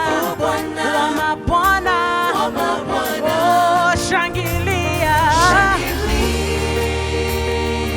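Gospel praise music: several voices singing with vibrato over a band with a steady bass line.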